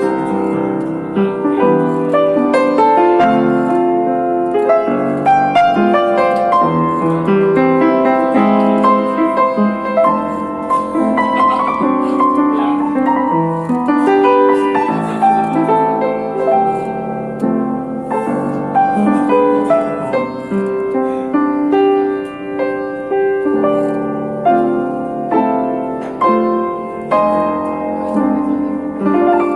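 Solo piano playing a slow, lyrical melody over sustained chords, each note sounding and then fading.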